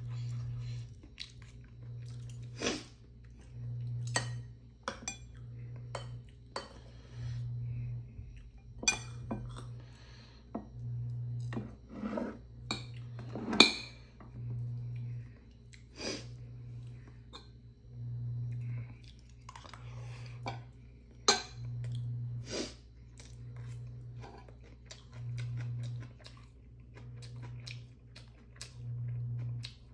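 Metal chopsticks and spoon clinking and scraping against ceramic bowls at irregular moments, with one sharp clink about halfway through. Under it a low hum pulses steadily about once a second.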